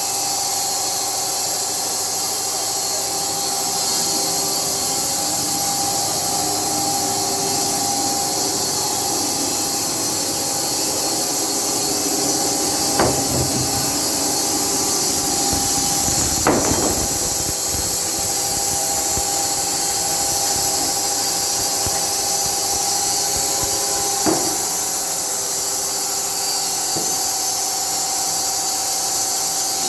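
Automatic band sawmill's blade cutting through a beech log: a loud, steady running noise with a strong high hiss. Three sharp knocks come about 13, 16 and 24 seconds in, the one at 16 seconds the loudest.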